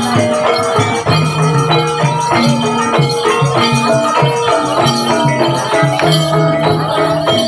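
Javanese gamelan music of a kuda lumping accompaniment: struck metallophone notes in a steady repeating melody over rattling percussion.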